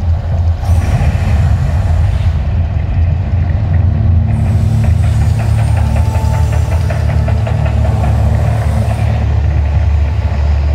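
Mirage volcano show erupting: a deep, steady rumble, joined twice by a rushing hiss as gas-fed flames and fireballs burst from the volcano and the lagoon, the longer rush from about four to nine seconds in.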